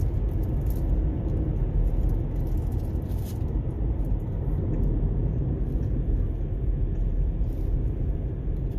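A car moving along a road: a steady, low rumble of road and engine noise.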